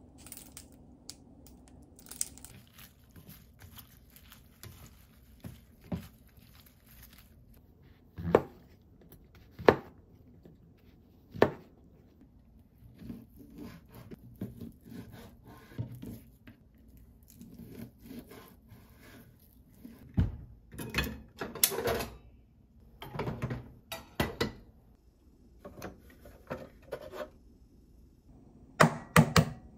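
Kitchen work sounds: a string of sharp knocks and taps, with a knife cutting raw chicken on a plastic cutting board.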